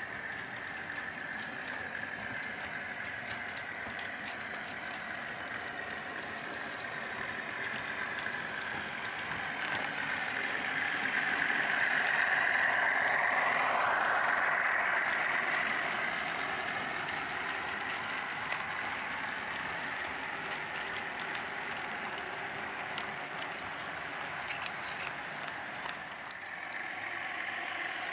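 A model Class 37 diesel locomotive hauling open goods wagons on a model railway: a steady running drone that swells as it passes close by about midway, then eases off, with the wagons' wheels clicking over the track joints later on.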